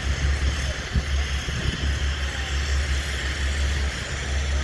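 Steady low rumble of vehicle noise under an even hiss, without a break.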